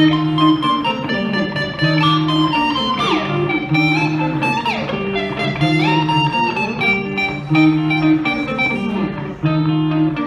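Live instrumental guitar music: plucked notes over repeating low held notes, with a few notes sliding in pitch.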